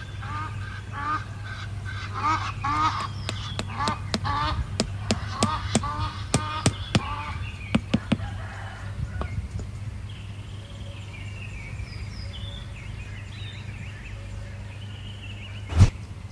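Geese honking over and over through the first half, over a steady low hum, with a run of sharp clicks among the calls. A single loud knock comes near the end.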